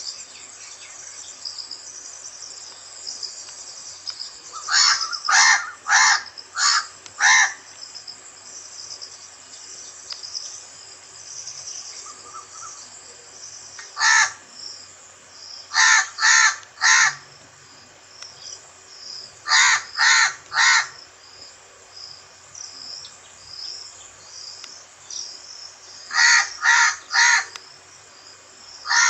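Crow cawing in runs of three to five quick caws, with a single caw between, the runs several seconds apart. A steady high chirring of insects, likely crickets, runs underneath.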